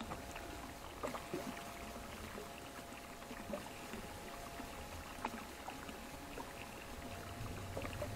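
Faint water lapping against a small boat's hull, with a few light knocks as the large grouper is handled on deck.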